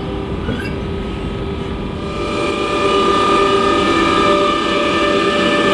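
DB class 146 electric locomotive passing slowly at close range: a rumble of wheels on rail with a steady whine of several held tones from its traction equipment, which grows louder about two seconds in.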